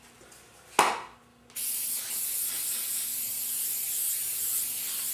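Aerosol can of spray adhesive hissing in one long steady blast as it coats a paper template, starting about a second and a half in. A single sharp tap comes shortly before it.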